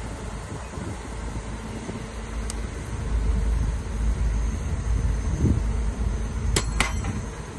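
Heavy earthmoving machinery's diesel engine running with a steady low rumble, with two sharp knocks close together near the end.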